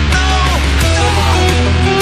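Loud punk-rock instrumental: distorted electric guitars, with lead-guitar string bends over a driving bass and drums.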